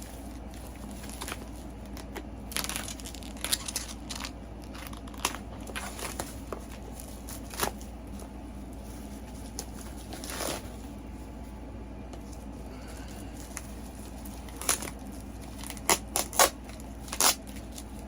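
Packaging being unwrapped by hand: scattered rustling and crinkling of wrapping, with a few louder sharp clicks near the end.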